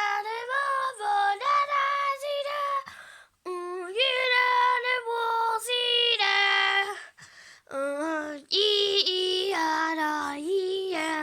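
Young child singing a Korean children's song in sung phrases, with short breaks about three seconds in and again around seven seconds.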